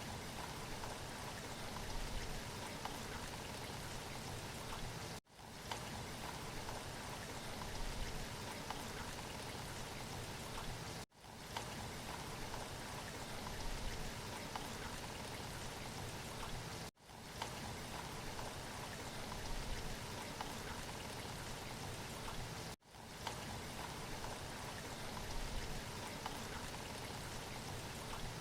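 Steady rushing noise like running water, cut off by a brief silence about every six seconds.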